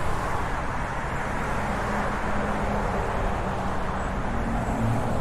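Road traffic noise: a steady wash of passing cars, with a low engine hum coming up in the second half.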